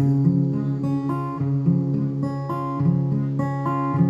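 Acoustic guitar playing chords in a steady rhythm, an instrumental passage between sung lines.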